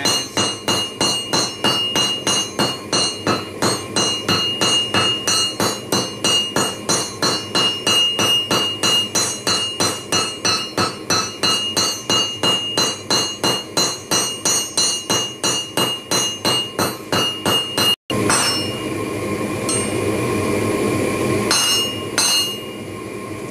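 Hand hammer striking a red-hot steel bar on a railroad-rail anvil in a fast, even rhythm of about three blows a second. Each blow rings with a metallic tone as the bar is rounded off and its hammer marks are smoothed. After about eighteen seconds the hammering stops abruptly, leaving a steady background noise and a couple of metal clanks.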